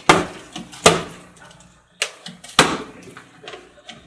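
Partly filled plastic water bottles landing on a glass tabletop during bottle flipping: about four sharp knocks, each dying away quickly, spread over the first three seconds.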